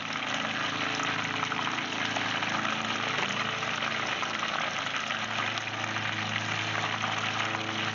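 Breaded perch deep-frying in hot oil in a cast iron Dutch oven: a steady sizzle and bubbling with fine crackle, over a steady low hum.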